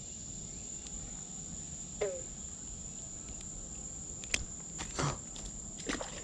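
Steady high-pitched trill of insects, with a few short clicks and rustles near the end.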